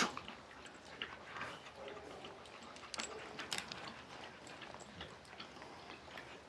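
Faint scattered clicks and light knocks with faint dog sounds, from dogs moving about on a hard floor.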